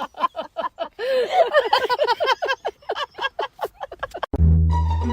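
Hearty laughter in rapid, rhythmic bursts, then plucked and bowed string music starts abruptly about four seconds in.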